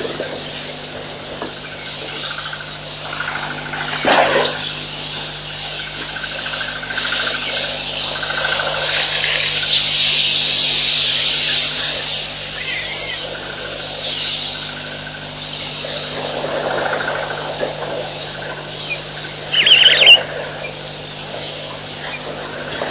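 Outdoor bush ambience at a waterhole: a steady hiss of insects with faint trilling calls over a constant low hum, and a short, loud, high-pitched call about twenty seconds in.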